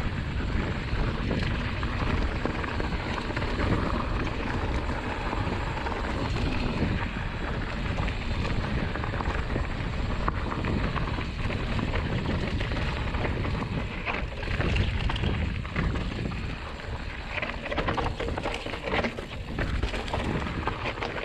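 Mountain bike riding fast down a dirt forest trail: tyres running over dry leaves, dirt and stones, with the bike rattling and knocking over bumps and wind buffeting the microphone. The rattling grows denser over rockier ground in the second half.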